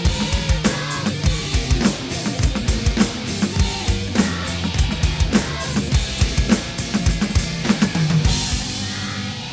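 Drum kit played in a steady groove of kick, snare and cymbal hits over a recorded song, ending in a sustained cymbal crash near the end.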